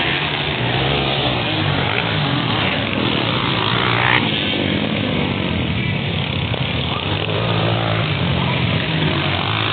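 Motocross dirt bike engines racing, their pitch rising and falling as the riders work the throttle.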